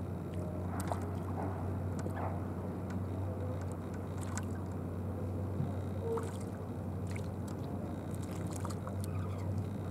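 A steady low hum with scattered light ticks and clicks over it.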